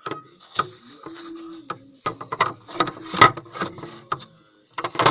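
Hard plastic toy vehicle knocking and rattling in irregular bursts as it is handled or pushed right at the microphone, busiest a couple of seconds in and again near the end.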